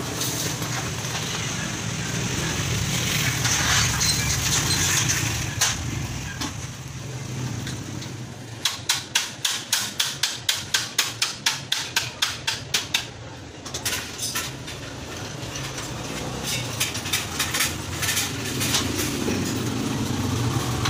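A run of quick, sharp knocks, about three to four a second for some four seconds in the middle, over a steady low hum.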